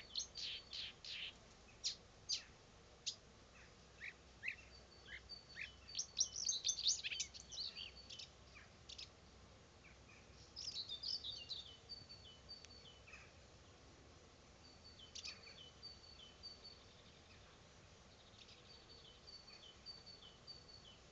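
Nightingale singing: phrases of fast sweeping and rattling notes alternating with series of short repeated high whistles, separated by brief pauses.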